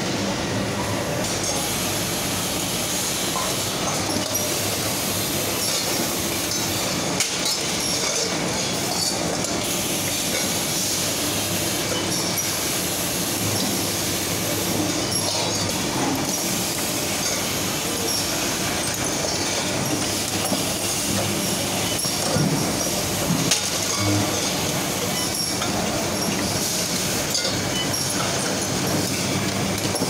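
Steady machinery noise of a compressor production line, with occasional small metallic clinks.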